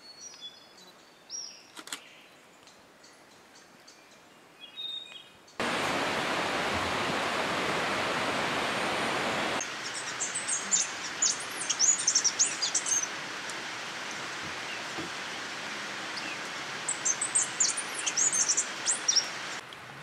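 Sooty thrush singing two bouts of high, squeaky, quickly changing phrases over a steady background hiss. The song is led by a few faint high bird notes, then about four seconds of loud, even rushing noise.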